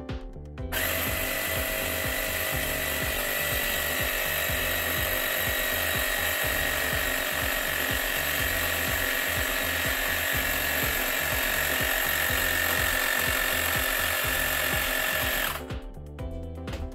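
Rechargeable portable air compressor running steadily with a constant whine. It starts just under a second in and cuts off about a second before the end.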